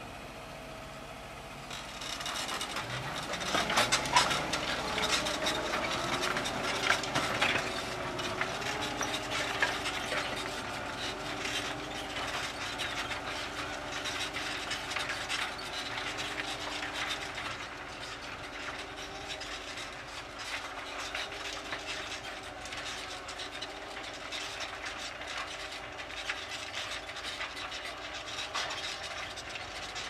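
Fendt 720 Vario tractor's diesel engine pulling a reversible plough through the soil. A few seconds in, the revs climb, then hold steady under load. Over it runs a constant rattling clatter of the plough and stony soil.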